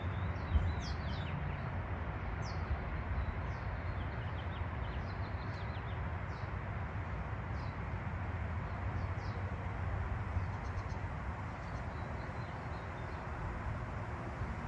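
Small birds chirping outdoors, short high falling notes repeated mostly in the first half, over a steady low rumble of background noise.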